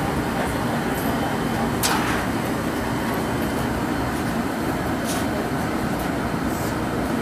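Steady noise of a glassblowing furnace's gas burner and combustion blower running, with a sharp click about two seconds in and another near five seconds in.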